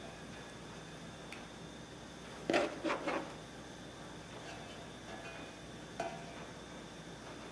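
Brass bulgogi pan and metal tableware knocked and clinked as ingredients are set out by hand: a quick cluster of clatter about two and a half seconds in, then a single click about six seconds in.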